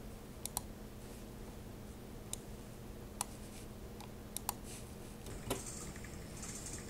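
A handful of sharp computer mouse clicks, scattered and including two quick double-clicks, over a faint steady hum.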